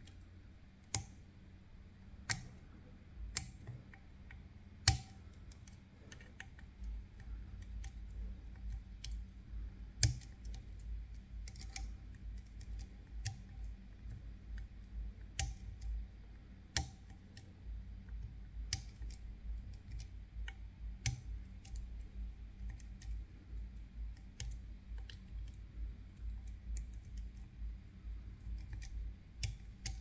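Metal lock picks clicking and scraping in a Picard Vigie lock as it is being picked: scattered sharp clicks, a few louder ones in the first five seconds, over a low rumble of handling from about seven seconds in.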